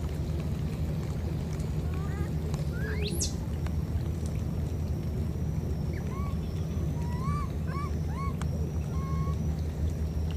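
Baby macaque giving short cries that rise and fall, several in a row, over a steady low motor-like hum; a quick rising whistle about three seconds in.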